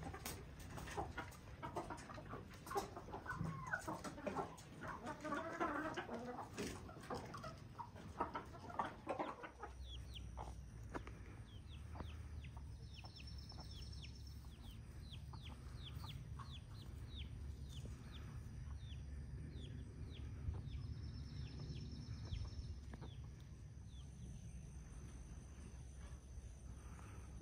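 Chickens clucking for roughly the first nine seconds. The rest holds a steady low rumble and a run of short, high chirps, about two a second.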